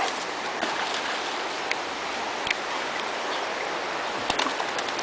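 Shallow creek water running steadily, a continuous even rush, with a few short sharp clicks over it.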